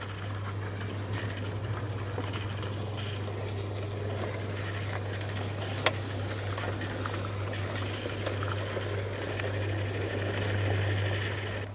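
A G-scale electric model railcar running along garden track and passing close by, with a steady low hum and wheel noise on the rails. One sharp click comes about six seconds in.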